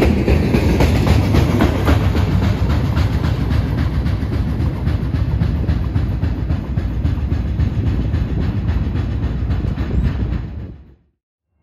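Norfolk Southern freight train's cars rolling past on the mainline, a loud steady rumble with a rapid clickety-clack of steel wheels over the rails. The sound fades out abruptly about ten and a half seconds in.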